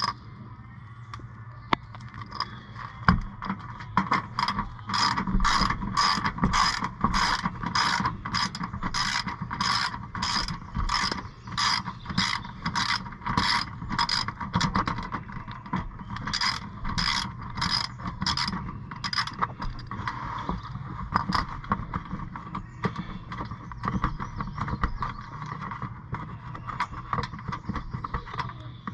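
Socket ratchet backing out the small bolts that hold the oil filter access cover. Its pawl clicks in regular strokes about twice a second, growing sparser and more irregular after the middle, over a steady low hum.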